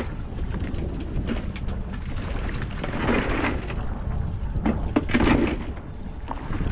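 Wind buffeting the microphone with a steady low rumble. Scattered clicks and two short louder bursts of noise, about three and five seconds in, come from things being handled on the boat's deck.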